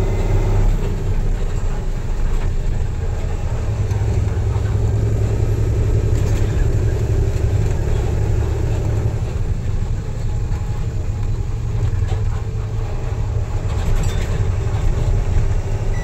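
A goods truck's engine and tyre noise heard inside the cab while driving on a wet road: a steady, low, unbroken running sound.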